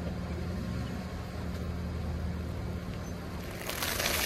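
Car engine running with a steady low hum as the car creeps forward. Near the end a tyre rolls onto plastic packets, crinkling and crunching them.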